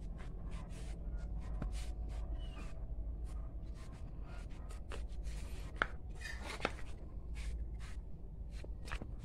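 Light scuffing and rustling from someone moving about with the camera, with two sharper clicks a little past the middle, over a steady low hum.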